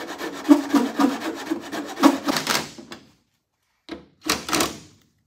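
A power drill driving a screw with a washer through a plastic valance strip: one run of about three seconds, then two short bursts near the end.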